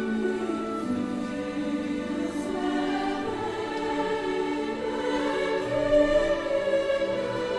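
Mixed choir singing held chords in several parts.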